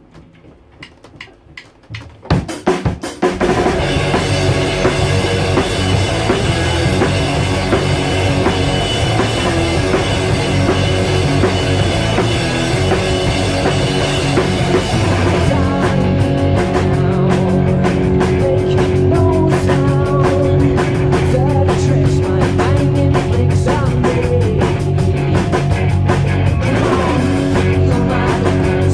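A rock band starts playing a song live: a few faint clicks, then about three seconds in the full band comes in with drum kit, bass and guitar, and keeps playing loud and steady. From about halfway on, the cymbals and drum hits get denser.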